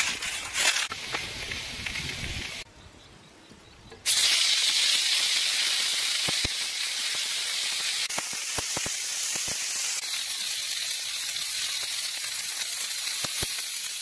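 Skewered octopus tentacles sizzling on a hot steel griddle plate: a loud steady hiss that starts suddenly about four seconds in, with a few sharp pops. Before it come light rustles and clicks, then a short quiet gap.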